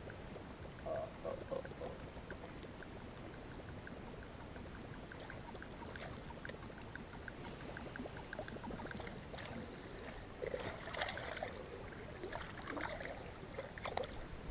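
Faint, even ticking of a fishing reel being cranked as a lure is retrieved, about three ticks a second. Near the end, a few soft water sounds as the lure comes in to the boat.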